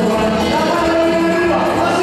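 Live band playing tropical dance music with a singer, amplified through a loud PA system.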